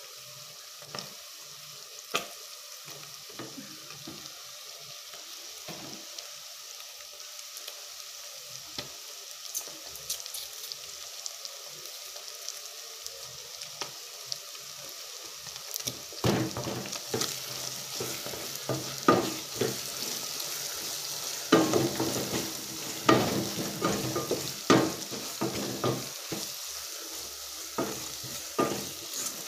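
Pilau base with masala and stock cubes frying in a pot, a steady sizzle. From about halfway in it is stirred, with many knocks and scrapes against the pot.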